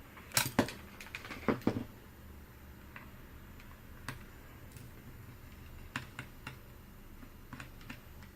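Sharp clicks and taps of an HP ENVY 15 laptop's plastic and metal parts being handled while it is taken apart: a quick cluster of loud clicks in the first two seconds, then scattered single clicks.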